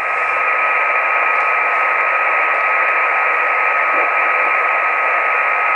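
Yaesu FT-817 receiver tuned to the HAMSAT VO-52 satellite downlink, giving out a loud narrow-band hiss with a steady whistle tone running through it. No station is talking on the channel.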